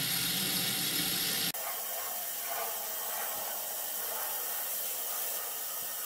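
The electromechanical stepper-motor driver and gear train of a Boeing 707 CPA-24 navigation computer running: a steady whirring hiss. It changes abruptly about a second and a half in, losing its lower part.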